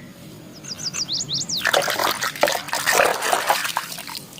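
Water splashing and sloshing as small plastic toys are washed, a busy patch of splashes lasting about two seconds. Before it, a few quick high chirps.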